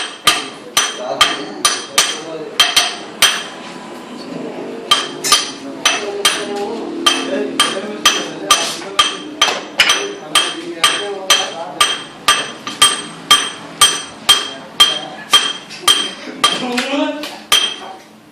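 A hammer strikes metal repeatedly, about two blows a second, each blow ringing sharply. There is a short pause a few seconds in before the steady hammering resumes.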